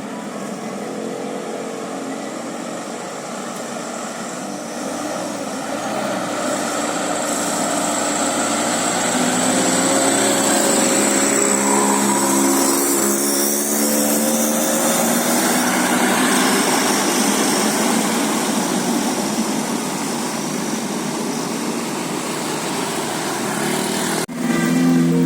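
Tour bus driving past: engine and road noise that builds to a peak midway and then eases off, with an abrupt break about a second before the end.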